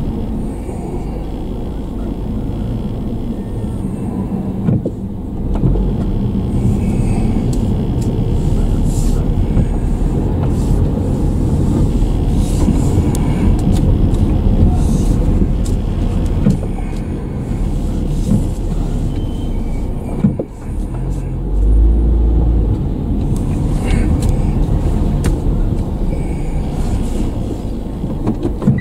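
Car cabin noise while driving slowly at low speed: a steady low rumble of engine and tyres, heard from inside the car, with a few light knocks and a brief deeper swell about three quarters of the way through.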